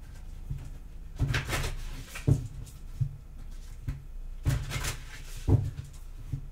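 A deck of tarot cards being shuffled by hand: a few irregular short slaps and riffles of the cards against each other over a low steady room hum.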